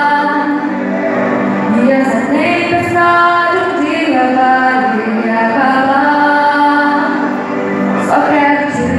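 A young woman singing a Portuguese-language pop ballad into a handheld microphone, amplified through a PA, with long held notes.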